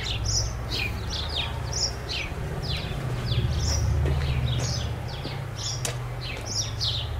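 Small birds chirping busily, a rapid run of short, high chirps that each drop in pitch, over a low steady hum that swells midway.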